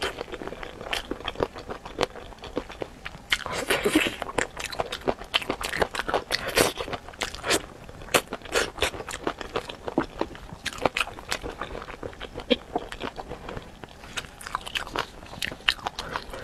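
Close-miked biting and chewing of spicy chicken feet: repeated, irregular crunches and crackles.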